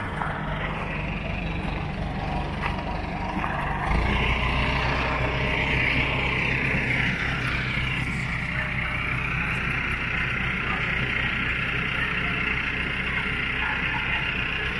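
Farm tractor's diesel engine running under load as it tows a narrowboat on a boat trailer, steady, and louder from about four seconds in.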